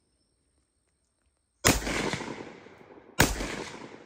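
Two single rifle shots from an AK-47-pattern rifle, the first about a second and a half in and the second about a second and a half later. Each shot is followed by a long fading echo.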